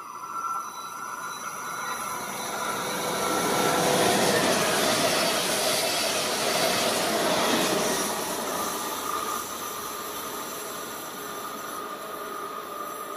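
A Bombardier Twindexx double-deck electric train passing on curved track, its wheel-on-rail noise building over the first few seconds, loudest from about four to eight seconds in, then fading as it moves away.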